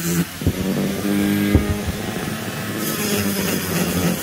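Handheld die grinder with a burr cutting into the transfer port of an Echo CS-670 chainsaw cylinder while the port is being ported. Its steady whine breaks off a moment in and goes uneven as the bit works the metal, with a few sharp clicks about a second and a half in.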